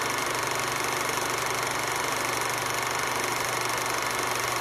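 A steady droning noise with hiss and a constant low hum, unchanging throughout.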